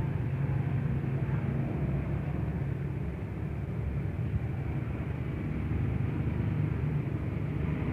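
Steady low rumble of outdoor street noise, motorcycle traffic and wind on a phone microphone.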